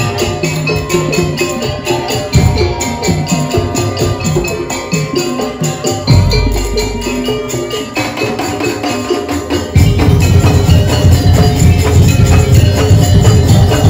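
Daul Madura music: a Madurese percussion ensemble playing a busy rhythm, with a repeating pitched melody over heavy drumming. About ten seconds in, the drums grow louder and fuller.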